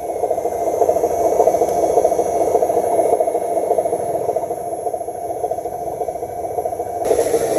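Radio-controlled model vehicle working: a steady, fast rattling and scraping of its small motor and gears. The sound shifts abruptly near the end.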